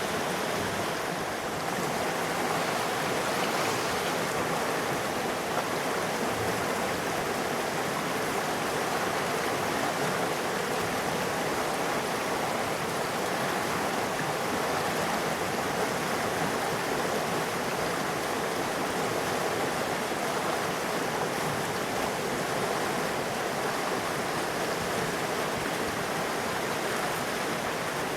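Steady rushing of a river's flowing water, an even, unbroken sound.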